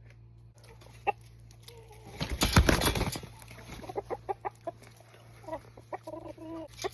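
Chickens clucking in short repeated notes, getting busier in the second half. About two seconds in, a loud rustling burst lasting about a second.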